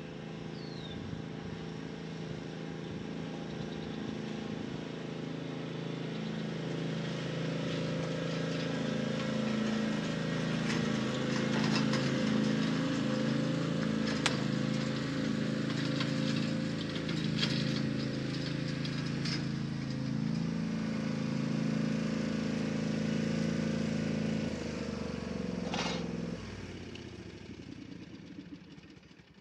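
Riding lawn mower engine running steadily, growing louder toward the middle and then dropping away near the end. A few light clicks and taps on top.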